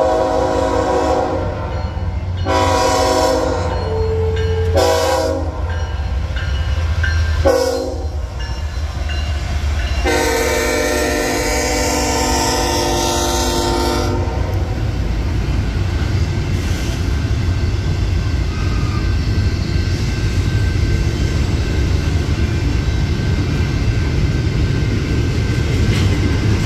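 BNSF diesel freight locomotives sounding their air horn for the grade crossing. Several shorter blasts are followed by one long blast of about four seconds, then the horn stops. After that the locomotives' engines and the double-stack intermodal cars go on with a steady rumble as they roll past.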